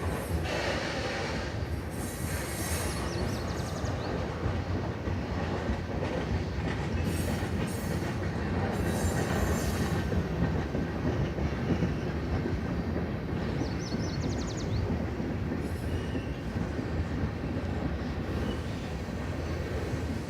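A freight train rolling past, a steady rumble of wheels on the rails, with a couple of brief high wheel squeals about three seconds in and again near fourteen seconds.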